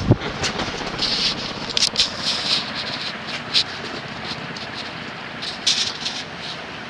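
Encon High Breeze industrial ceiling fan, with its cast aluminum motor, running on high speed: a steady rush of moving air with irregular light rattles and clicks, and a sharp knock right at the start.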